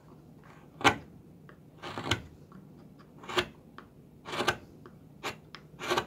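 A flat carving chisel pushed by hand through the edge of a wooden block, paring off shavings: about six short slicing cuts, roughly a second apart. The cuts trim the high corner of the block's base so it stands level.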